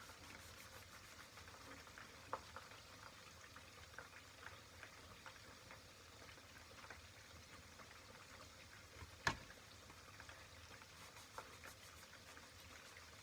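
Faint simmering of water in a pan, with scattered small clicks of kitchen utensils and one sharper click about nine seconds in.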